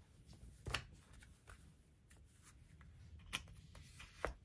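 Quiet paper handling: light rustling of planner pages with a few small taps, the sharpest about a second in and two more near the end.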